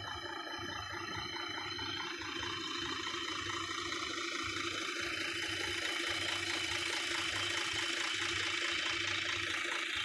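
Heavy diesel engine running steadily with an even pulse and a high whine over it, growing a little louder over the first few seconds.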